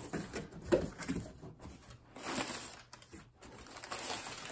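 Cardboard shipping box being opened by hand: flaps pulled and rubbed, with irregular scraping and rustling of cardboard and a few sharper knocks.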